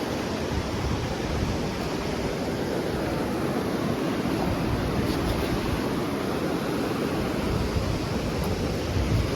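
Waves washing steadily on the shore, with wind rumbling on the microphone.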